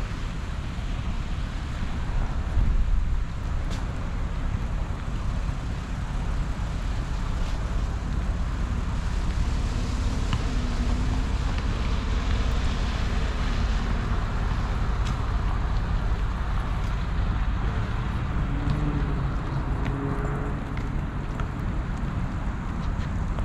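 City street traffic on rain-wet roads, a steady wash of passing cars, with low wind rumble on the microphone.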